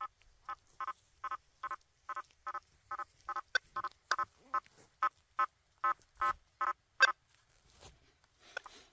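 Quest V80 metal detector with a 9-inch coil giving short, buzzy beeps of one pitch, about two or three a second, as it responds to targets on a nailboard. The beeps stop about seven seconds in, and a few sharp clicks fall among them.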